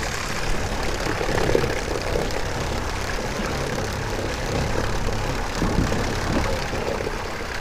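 Bow-mounted electric trolling motor running steadily at full speed on a nearly dead battery, under a steady rush of wind and water.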